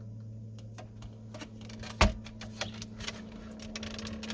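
Light clicks and rattles of plastic interior trim being handled, with one sharper click about two seconds in, over a steady low hum.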